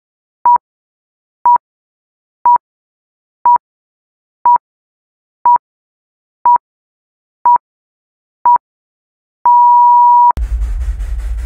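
Countdown beeps: a short, identical electronic beep once a second, nine in all, then one long beep of about a second as the count reaches zero. Right after it a loud, noisy rumbling sound cuts in.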